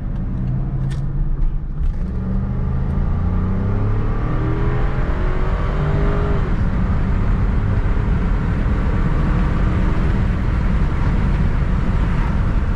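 Cadillac DeVille's 4.6 L Northstar V8 accelerating hard, heard from inside the cabin with the windows down: the engine note climbs for several seconds, falls at a gear change about six seconds in, then runs on under heavy wind and road noise.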